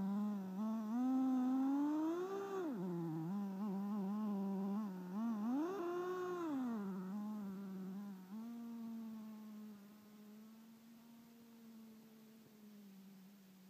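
Redcat Tornado S30 RC buggy's small nitro engine buzzing, revving up and dropping back twice as the buggy spins through the snow. It then settles to a steady high buzz that grows fainter as the buggy drives away.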